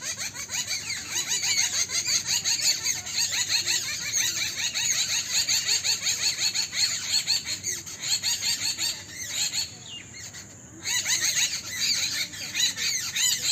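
A dense chorus of many small birds chirping at once, with a brief lull about ten seconds in.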